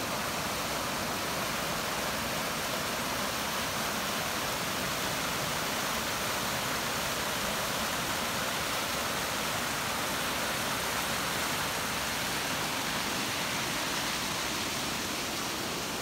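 Small waterfall and rapids on a partly frozen creek: water rushing steadily.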